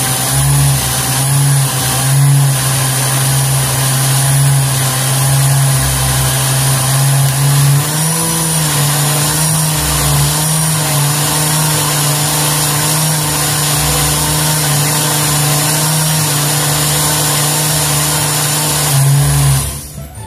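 Countertop blender motor running steadily as it blends a mango and Yakult ice-cream mixture, its hum shifting slightly in pitch partway through as the load on the blades changes. It stops abruptly near the end.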